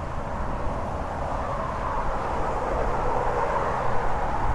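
Steady hum of road traffic on a highway bridge, tyre and engine noise, swelling a little about three to four seconds in as a vehicle passes.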